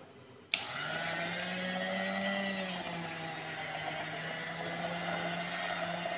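Electric hand mixer switched on about half a second in and running steadily on low speed, its beaters whisking milk into thick chocolate brownie batter in a glass bowl.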